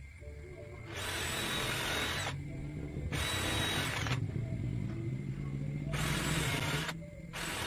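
Handheld electric power tool running, biting into wood in four bursts of loud cutting noise, three of about a second each and a short one at the very end.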